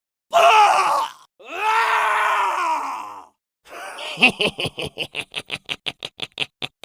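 A man screams twice in agony: a short cry, then a longer one. Then, a little under four seconds in, he breaks into a sinister, evil laugh of rapid, evenly spaced 'ha' pulses, about five or six a second.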